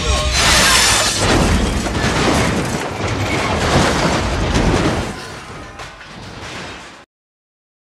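Film battle sound effects: heavy booms and crashes of cars and debris tumbling and smashing, mixed with music, fading after about five seconds and cutting to silence about seven seconds in.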